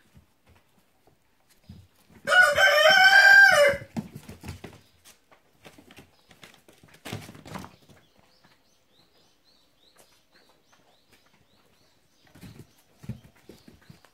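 A rooster crows once, a loud call of about a second and a half, about two seconds in. A few soft knocks and rustles follow.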